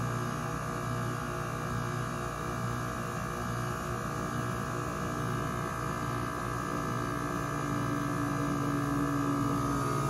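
Goodman GSH13 heat pump outdoor unit running with a steady compressor hum made of several pitched tones. A stronger, higher-pitched tone joins the hum near the end.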